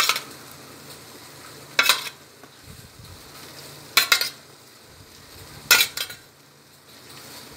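Four brief metal clinks about two seconds apart as halved boiled eggs are set one by one into chilli masala in a non-stick kadai, over the faint sizzle of the simmering masala.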